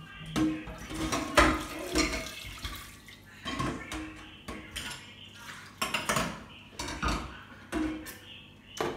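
Dishes being washed in a stainless steel sink: a frying pan and other dishes clanking and knocking against the sink at irregular intervals, a few of the knocks ringing briefly, with water splashing.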